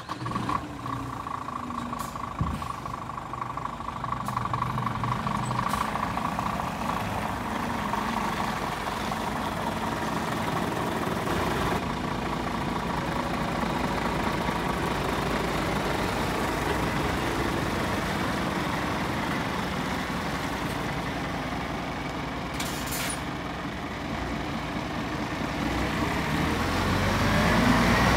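Scania P410 truck's six-cylinder diesel idling just after starting, with a steady high tone for the first several seconds and a short hiss about 23 seconds in. Near the end the engine gets louder and its note rises.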